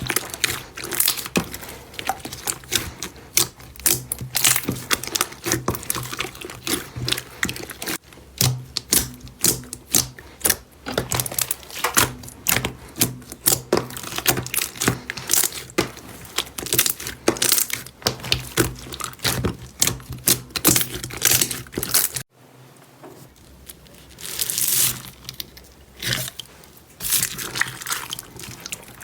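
Slime being worked by hand, giving a dense run of sharp crackling clicks and pops. About 22 seconds in the sound breaks off, and softer, sparser squishing follows.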